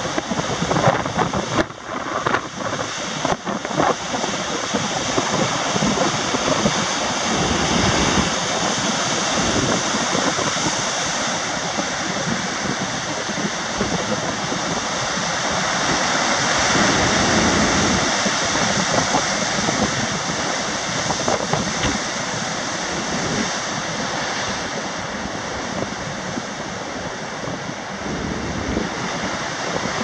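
Heavy storm surf driven by an approaching typhoon, breaking and churning over a rocky reef shore in a continuous rush of water that swells louder about halfway through. Wind buffets the microphone in gusts during the first few seconds.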